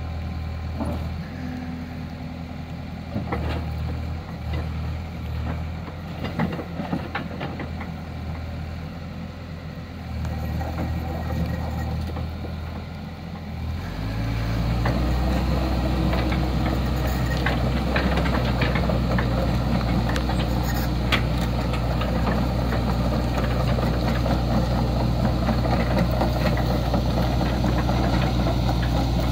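Komatsu PC88MR excavator's diesel engine running at idle. About halfway through it steps up to a louder, steady, faster run.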